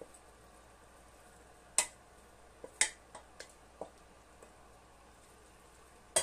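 Cookware knocking and clinking against an enamelled pan as pasta is tipped and scraped in: two sharp knocks about two and three seconds in, a few lighter taps just after, and another sharp knock at the very end.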